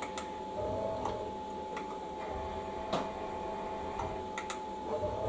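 Tormach CNC lathe's axis drive jogging a turning tool slowly toward the tool setter's anvil to touch it off. A steady whine and low hum run under scattered light ticks.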